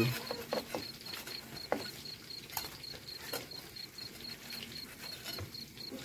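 Banana fritters frying in a wok of hot oil, with scattered crackles and a few clicks of the metal spatula. A cricket chirps in a steady, rapid, even pulse in the background.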